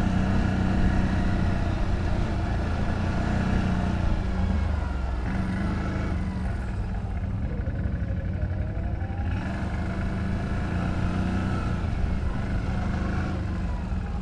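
ATV engine running under load, its revs rising and falling.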